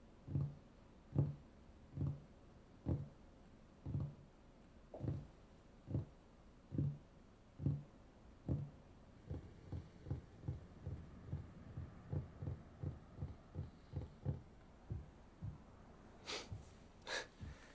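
Fingers tapping on a wooden table: soft, evenly spaced thumps about one a second that quicken to two or three a second about halfway through, followed by two sharp clicks near the end.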